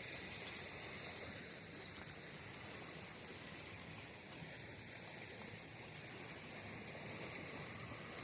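Faint, steady outdoor ambience: an even hiss with no distinct events.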